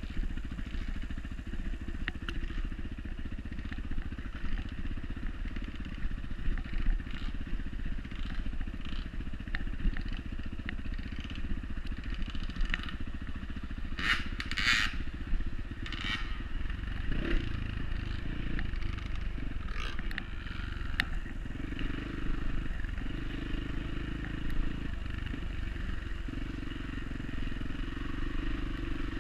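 Dirt bike engine running on a trail ride, with scattered knocks and clatter and a couple of sharper knocks about halfway through.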